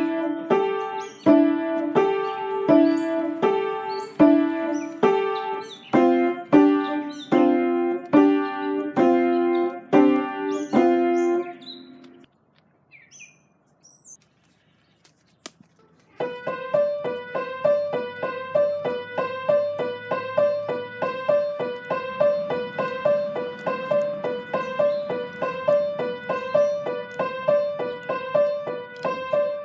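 Piano-like keyboard music playing a rhythmic pattern of repeated notes. About twelve seconds in it breaks off into a few seconds of near quiet, broken by some short high chirps and a click. It then resumes with faster repeated notes.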